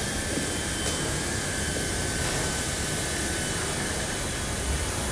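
Grain-handling machinery in a silo plant running with a steady, even noise.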